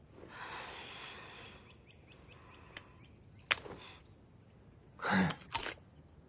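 A fresh cucumber broken by hand: a single sharp crack about three and a half seconds in, then a louder crunching snap near the end, after a soft breathy exhale at the start.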